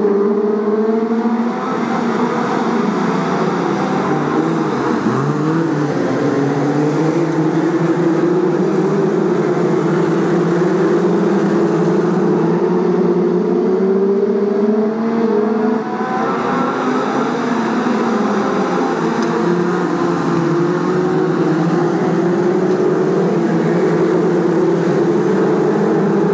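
A pack of BriSCA F2 stock cars racing, several engines running hard together. Their overlapping pitches climb and drop as the cars accelerate and ease off around the oval.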